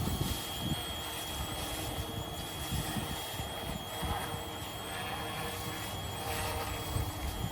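Yu Xiang UH-1 Huey remote-control helicopter hovering with a steady high motor-and-rotor whine while it lifts a slung bag loaded with five candies. An uneven low rumble of wind on the microphone runs underneath.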